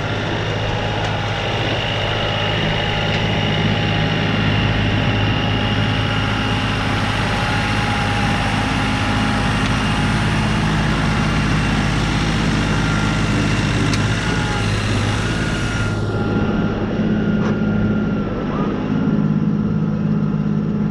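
Tractor with a rear-tine tiller running steadily, a thin whine riding over the engine note. The hiss in the upper range drops off about sixteen seconds in.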